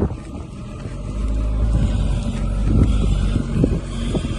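An engine running steadily at a low, even speed, with a few short knocks over it.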